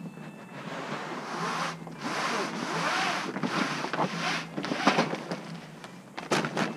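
RV awning fabric rustling and scraping in uneven surges of hissy noise as it is worked by hand, with a couple of sharp clicks near the end.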